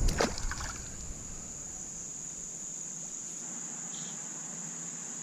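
Insects, crickets by their sound, drone steadily in one high-pitched band. In the first second there is brief splashing and handling noise at the water's edge as a sunfish is let go.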